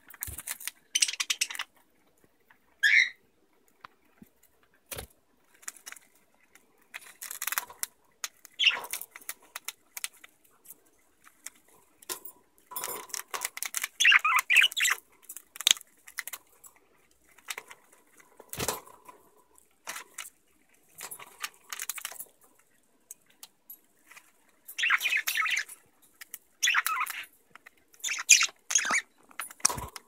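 Budgies chirping now and then, with a wavering call about three seconds in. Between the calls come irregular bouts of crackling and rustling as a budgie picks at a woven palm-leaf ball toy, with a few sharp clicks.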